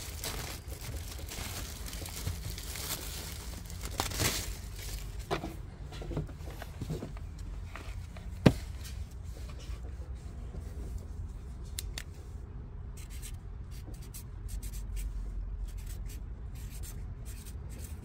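Rustling, crinkling and scraping of hands handling a pleated cabin air filter and its plastic bag, with one sharp click about halfway through.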